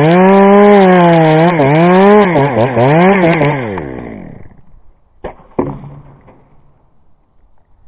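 Two-stroke chainsaw running at high revs, its pitch dipping and rising several times, then winding down and cutting out about four seconds in. Two sharp knocks follow about a second later.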